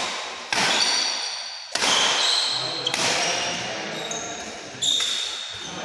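Badminton doubles rally: several sharp racket strikes on the shuttlecock, one to two seconds apart, each echoing in the hall. Sneakers squeak on the court floor between shots.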